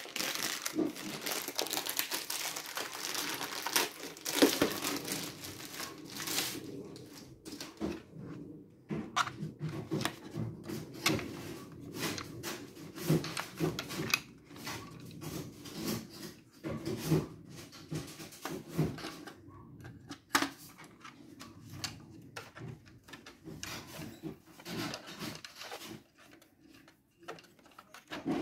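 Plastic packaging bags crinkling and rustling as parts are unwrapped. After about eight seconds this gives way to scattered clicks, knocks and light scraping as the monitor's stand parts are handled and fitted together.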